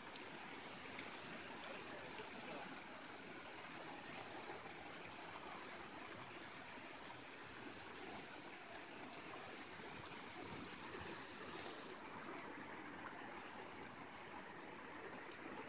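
Water from a large plaza fountain (the Turia Fountain) cascading over the basin rim and splashing into the pool in a steady rush. About twelve seconds in the splashing turns brighter and hissier.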